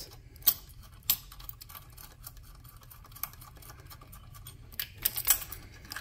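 A few light metallic clicks and taps as an outboard's remote throttle cable and its brass fitting are handled and fed through the mounting bracket: one about half a second in, one about a second in, then several more near the end.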